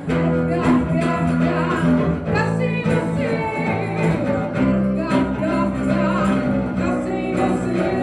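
Live rock band playing: a woman singing into a microphone over electric bass and the rest of the band, loud and continuous.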